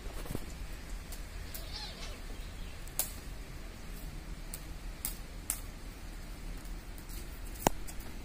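Two kittens play-fighting on a hard tiled floor: scattered light clicks and taps of claws and paws on the tiles over a steady low hum, with one sharper knock near the end.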